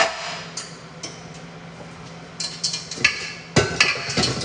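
Sharp clicks and knocks of a stainless steel stand-mixer bowl being handled. A few single knocks come first, then a quick cluster of knocks and scrapes in the last two seconds.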